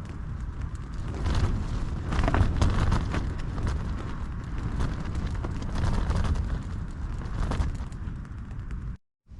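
Strong wind buffeting the tent and microphone: a continuous low rumble with irregular sharper gusts.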